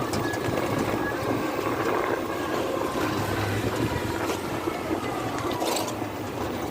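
Three-wheeled electric bike riding uphill under load: steady road and wind rumble with a faint high motor whine that drifts a little in pitch.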